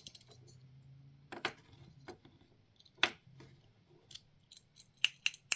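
Light clicks and taps of a small model dumpster being handled on a desk: its little plastic lids flipping and the dumpster knocking the desktop. A handful of separate sharp clicks, the loudest about three seconds in and near the end.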